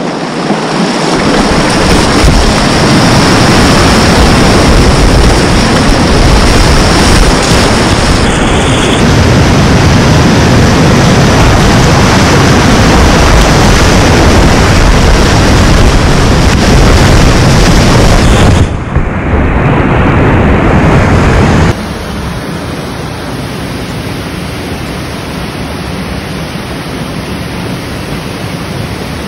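Whitewater rushing around a kayak running a rapid, a very loud steady roar, with abrupt jumps where the footage is cut. About 22 seconds in it drops suddenly to the quieter steady rush of a rapid pouring over rock ledges.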